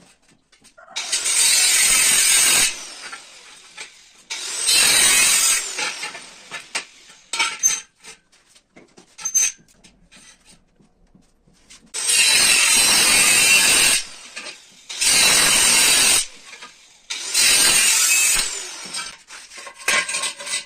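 A power tool working metal in repeated bursts: five runs of about two seconds each, with short blips in between.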